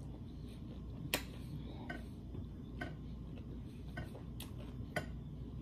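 Quiet chewing of a seasoned cucumber slice with the mouth closed: a handful of sharp, irregularly spaced mouth clicks and smacks, the strongest a little over a second in, over a low steady hum.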